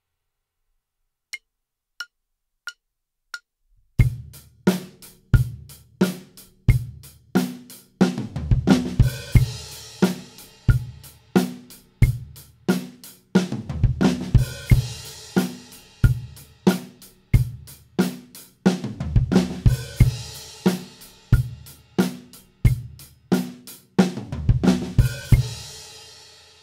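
Four evenly spaced count-in clicks, then a drum kit playing a groove in repeated passes with a sixteenth-note fill: snare, rack tom, floor tom and bass drum in sequence, then a flam accent with a snare ghost note and an open hi-hat with the bass drum, at about 90 beats per minute. The last strike rings out and fades near the end.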